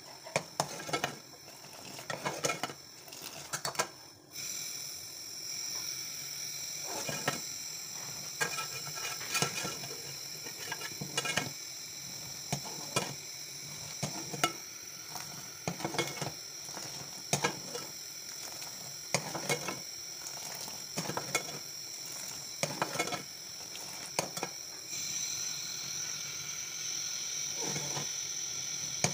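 Metal ladle knocking and scraping against a metal pot of boiling milk tea, a clink roughly every second, over a steady hiss from the boil.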